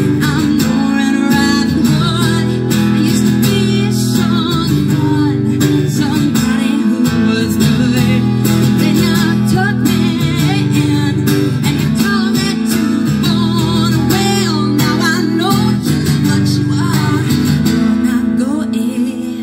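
A woman singing a country-style song and strumming an acoustic guitar, amplified live, her held notes wavering with vibrato.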